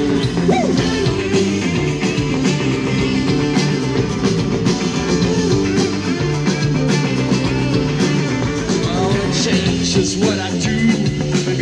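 Live rock band playing: electric guitar and drums, with a singing voice.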